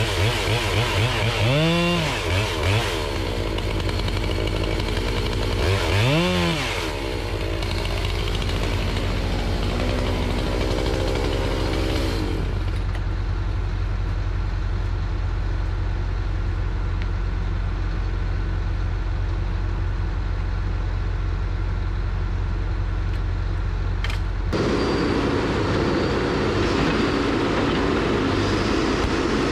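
Chainsaw running and cutting, revving up about two and six seconds in, over the steady low running of a tracked feller buncher's diesel engine. The saw stops about twelve seconds in, leaving the machine's engine, which picks up louder as its boom and cutting head move near the end.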